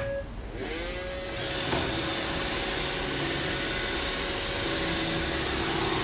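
iRobot Roomba 790 robot vacuum starting a cleaning run: its vacuum motor and brushes spin up with a rising whine about half a second in, then run with a steady whirring hiss.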